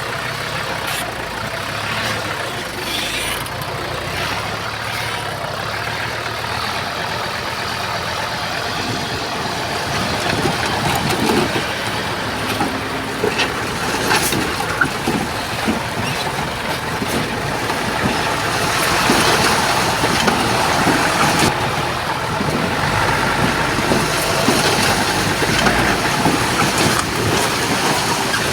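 Komatsu bulldozer's diesel engine running steadily under work, with occasional sharp knocks. It grows louder about a third of the way in and again past the middle.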